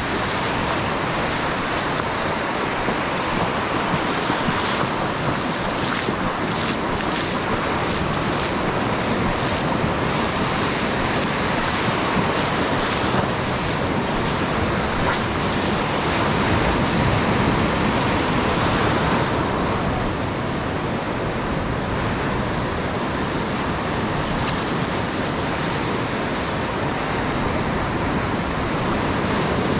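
Sea surf breaking and washing in over the shallows, a steady rushing wash, with wind rushing over the microphone.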